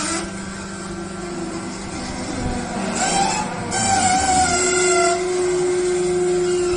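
Hydraulic cardboard baler running: a steady motor and pump hum, joined about three seconds in by a louder, strained whine with rougher noise as the press comes under load.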